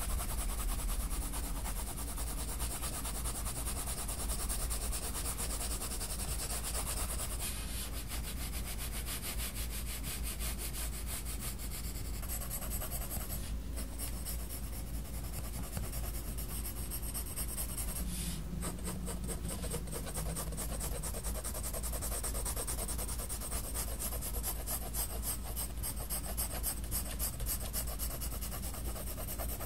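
Faber-Castell Polychromos coloured pencil scratching on sketchbook paper in quick, closely spaced shading strokes.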